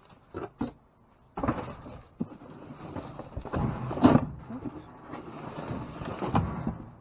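Rummaging through trash in a dumpster: plastic bags and packaging rustling and crinkling, with a few knocks as items are moved, the sharpest about four seconds in.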